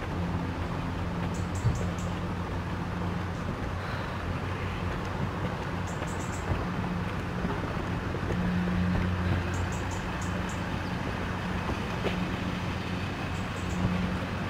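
Steady low hum of a vehicle engine running, with even background noise. Small clusters of faint high ticks come now and then.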